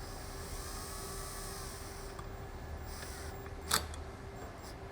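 Quiet handling of a screwdriver and metal parts as the guard screws of a circular saw are tightened, over a steady low hum, with one sharp click about three-quarters of the way in.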